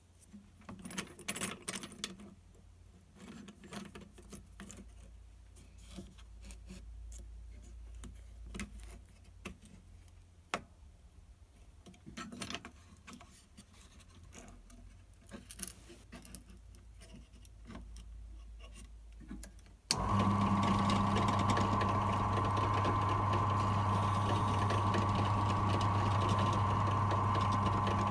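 Light clicks and scrapes of small metal and plastic parts as threaded hold-down clamps are adjusted and tightened on a drill press table. About twenty seconds in, the mini drill press's electric motor switches on abruptly and runs steadily, with a low hum and a higher whine.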